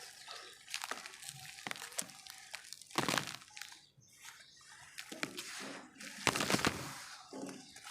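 Lumps of red dirt crumbling and crunching as they are crushed, in irregular crackly bursts with sharp snaps, loudest about three seconds in and again a little after six seconds.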